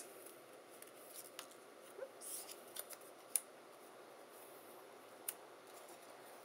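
Quiet handling of die-cut cardstock pieces: soft paper rustling with a few sharp light taps, the loudest a little over three seconds in and another about five seconds in, as pieces are separated from a stack and set down on a cutting mat.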